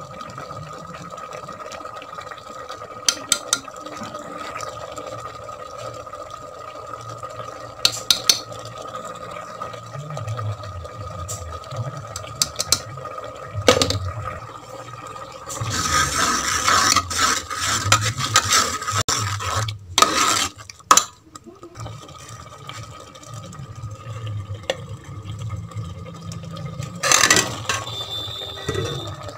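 A metal spoon clinks and scrapes in an aluminium pressure cooker while spices are stirred into the dal and pieces of drumstick are dropped in. Scattered knocks, with a busier stretch of clatter and stirring past the middle, over a steady faint whine.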